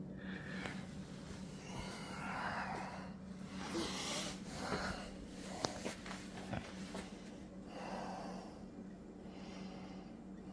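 A person breathing softly close to the microphone, a puff every second or two, over a steady low hum, with a small click about halfway through.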